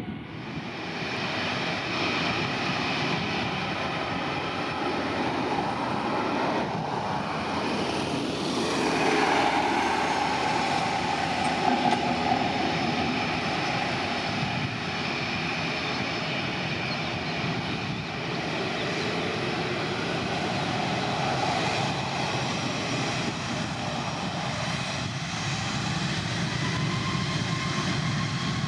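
Airbus A330neo's Rolls-Royce Trent 7000 jet engines running at low power on the ground: a steady rumble under a high engine whine. Near the end one tone rises slightly.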